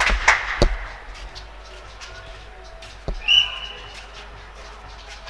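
Sharp knocks and voices at the start, then a single thud about three seconds in, followed at once by one short, steady referee's whistle blast.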